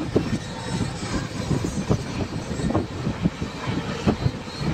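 Passenger train running, heard from inside a coach at an open barred window: a steady rumble of wheels on the rails with frequent irregular knocks and rattles.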